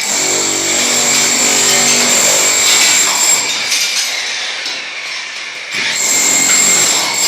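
Power tool motor running with a high whine, slowing down and dropping in pitch midway, then speeding back up about six seconds in.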